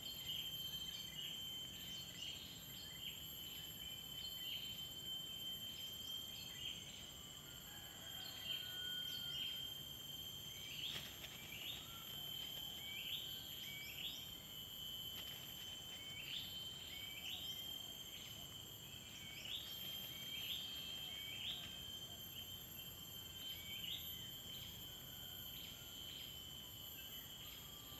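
Steady high insect trilling in several pitches, with a bird repeating short rising chirps about once a second.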